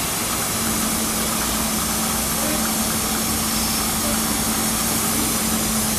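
JNR Class 8620 steam locomotive 58654 standing with steam up: a steady hiss of steam, with a steady low hum that sets in about half a second in.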